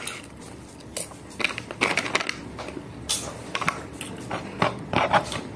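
Close-up crunching of crispy fried dried fish being chewed, in a string of irregular sharp crunches.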